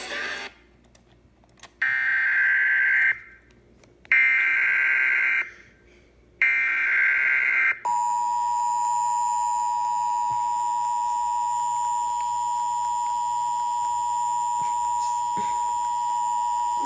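Emergency Alert System tones: three short screeching bursts of the digital SAME header data, each just over a second long with short pauses between. About eight seconds in, the steady two-tone EAS attention signal starts and holds without a break.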